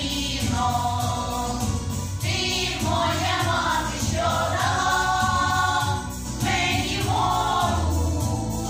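A women's folk vocal ensemble sings a Ukrainian song together, in long held phrases.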